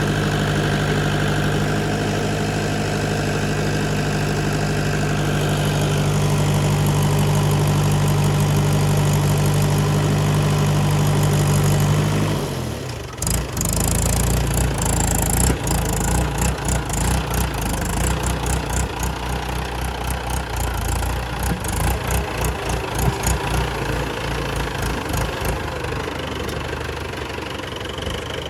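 Heavy diesel engine of earth-moving machinery running steadily. About halfway through it dips briefly, then runs unevenly in pulses with a fast rattle of clicks over it.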